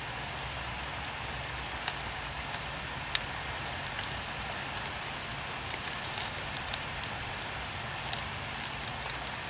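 Steady rain falling, a dense even hiss with scattered sharp drip taps on hard surfaces standing out above it. A low steady rumble runs underneath.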